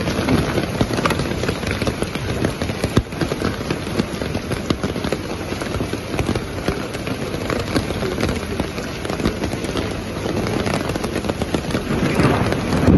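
Hail and rain pelting the wet street, a dense crackle of countless small hits that grows louder near the end.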